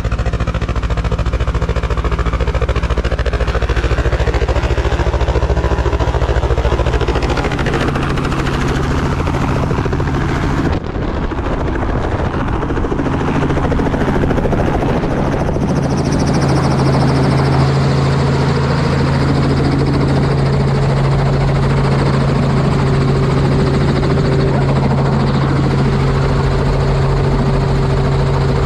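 Small helicopter running loud and continuous, with a deep pulsing rotor beat. About a third of the way in there is an abrupt cut to the steadier, even drone of the helicopter running close by on the ground.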